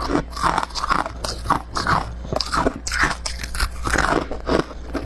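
Close-miked biting and chewing of powdery freezer frost ('snow ice'): a steady run of soft crunches, two or three a second.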